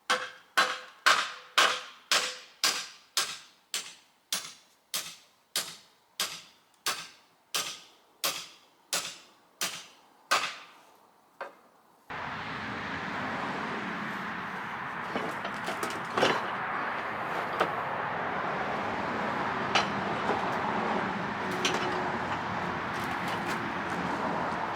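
Hammer blows driving rusted carriage bolts out of an old wooden sawmill carriage frame, about two strikes a second, growing fainter as the bolt works loose. About halfway through the hammering stops and a steady rushing noise with a few scattered knocks takes over.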